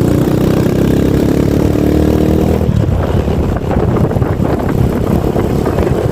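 Honda Fan 125 single-cylinder four-stroke motorcycle engine running under way, its note rising gently, then falling away into a rougher sound about two and a half seconds in.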